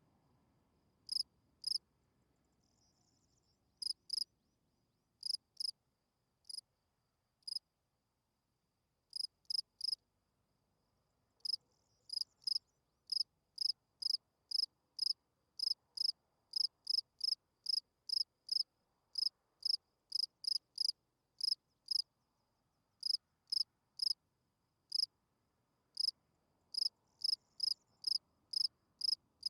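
Field cricket chirping: short, high-pitched chirps at about two a second, broken by pauses of a second or more in the first half. This is the male's calling song.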